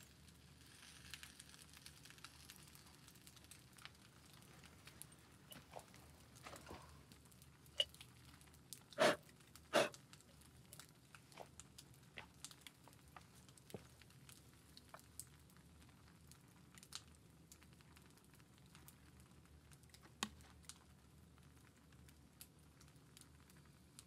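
Quiet crackling of a small open fire: soft scattered clicks and pops, with a few sharper knocks, the loudest two a little after nine seconds in.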